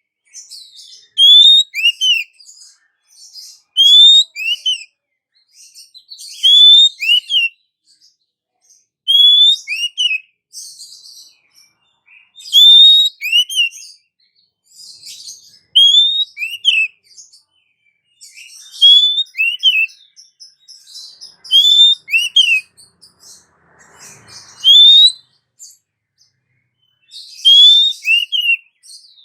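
Female oriental magpie-robin (kacer) calling: a short phrase of two clear, downward-curving whistles followed by scratchy higher notes, repeated about every three seconds. It is a female's call to a male, the kind used as a lure to set male birds singing.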